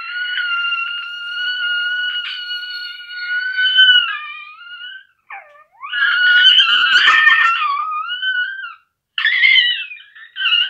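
A high, whistle-like tune blown by a person with a hand held to the face: long held notes that waver and glide in pitch, breaking off several times, with a quick swoop down and back up about five seconds in.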